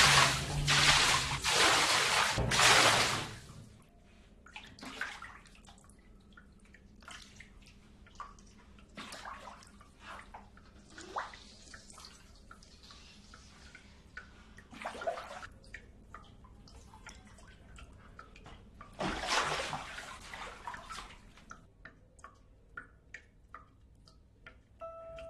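Water from a broken fish tank gushing and splashing onto a tiled floor for about the first three seconds, then quieter scattered drips and small wet splashes, with another short rush of splashing about nineteen seconds in.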